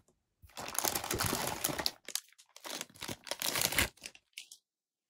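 Clear plastic packaging bag crinkling as a figure part is pulled out of it, in two bouts of a second and a half to two seconds each.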